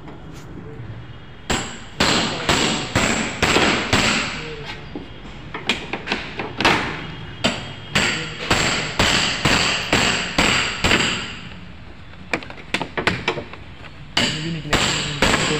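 Rapid, regular hammer blows, two or three a second, in a long run that stops for a few seconds and then starts again near the end.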